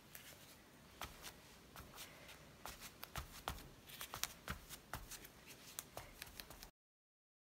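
Piece of packaging foam dabbed with paint on a journal page: faint, irregular soft taps with a light papery rustle, about two or three a second, cutting off abruptly to silence near the end.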